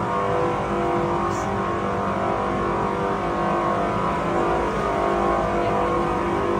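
A steady engine or motor running at a constant pitch, a continuous hum without breaks.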